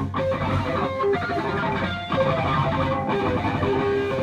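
Hardcore punk band playing live, with an amplified electric guitar riff carrying the music between vocal lines.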